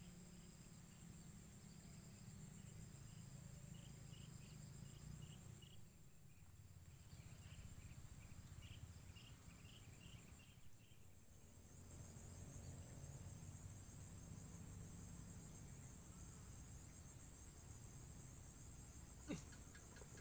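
Faint chorus of crickets: a steady high-pitched trill with runs of short, evenly repeated chirps, over a low background rumble.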